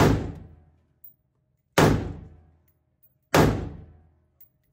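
Three single rifle shots fired slowly, one at a time, about a second and a half to two seconds apart, each ringing briefly off the walls of an indoor range.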